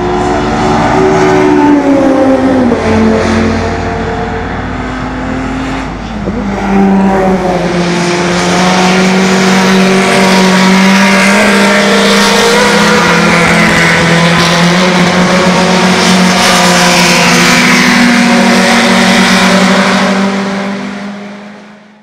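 Historic racing car engines at race speed: a car passes with its engine note dropping in pitch a couple of seconds in. Another engine note then rises and holds steady at high revs, fading out near the end.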